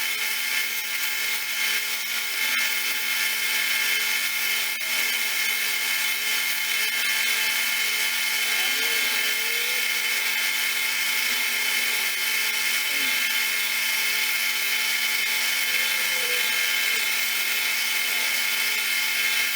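Electric power sander, a flap-disc grinder or belt sander, running steadily while it grinds and polishes the steel head of a body hammer, its pitch wavering slightly as the work is pressed against it.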